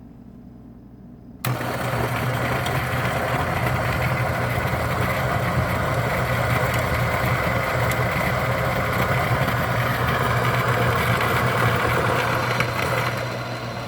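Niche Zero conical-burr coffee grinder starting about a second and a half in and running steadily as its motor grinds a small dose of beans, a low motor hum under the crunch of grinding. It eases off a little near the end as the beans run through.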